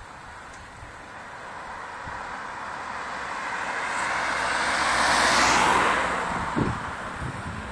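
Tuned Seat Leon Cupra R with a turbocharged four-cylinder driving past at speed. The rush of engine, exhaust and tyre noise swells to a peak about five seconds in and then fades, with a brief low thump soon after the peak.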